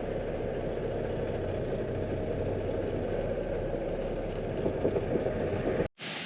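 Truck engine running steadily, a low hum with even low tones under it; the sound cuts off abruptly near the end.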